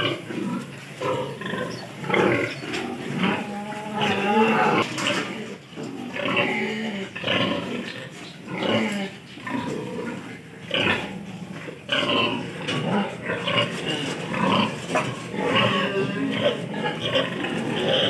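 A pen of piglets grunting, with many short overlapping calls one after another, some of them higher and bending in pitch.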